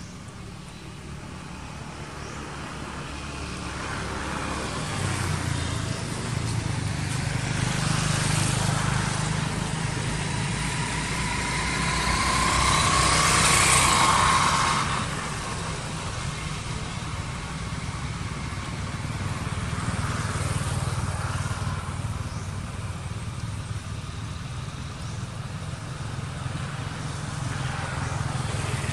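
Passing motor traffic: a steady low engine hum throughout, with vehicles going by that swell up and fade, the loudest about halfway through.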